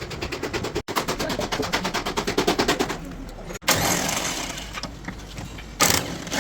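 A power tool rattling rapidly, about fourteen strikes a second, for a couple of seconds; after a cut a steady rushing noise follows, with a loud short burst near the end.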